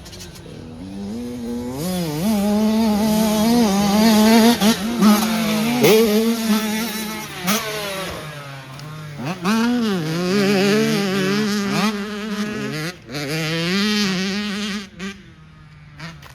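Engine of an off-road Mini race car at full throttle, its revs climbing and dropping repeatedly through gear changes, with scattered knocks and thuds.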